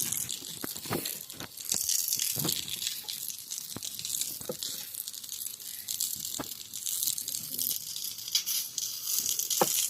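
Maandazi deep-frying in hot cooking oil: a steady sizzle with scattered small pops and clicks.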